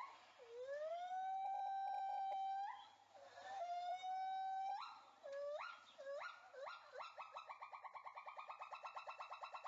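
Background electric-guitar music: two long held notes that each slide upward at the end, a few quick upward slides, then a fast, evenly pulsing tremolo note near the end.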